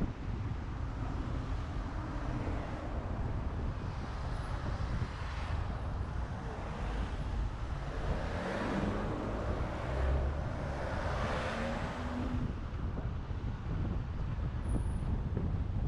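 Car driving slowly along a town street: a steady low rumble of road and wind noise, with a louder swell of noise between about eight and twelve seconds in.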